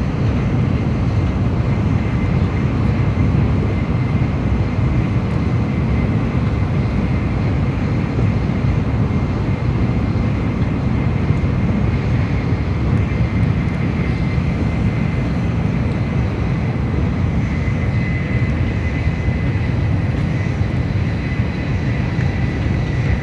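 Steady rumble and rushing noise inside the passenger cabin of an N700A Shinkansen running at about 283 km/h, with a faint steady high whine above it.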